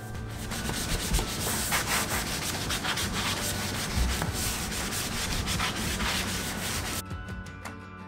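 Hand sanding block scrubbing the surface rust off a stainless steel refrigerator door in quick back-and-forth strokes. The scraping stops about a second before the end, when strummed guitar music comes back.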